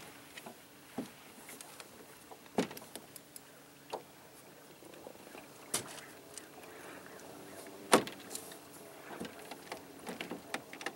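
A small boat being paddled: a sharp knock every second or two as the strokes go in, the loudest about eight seconds in, with light lapping water between.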